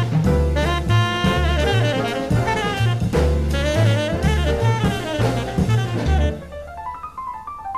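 Jazz background music with saxophone and drum kit over a bass line; a little after six seconds in the drums and bass drop out, leaving a thinner melodic line.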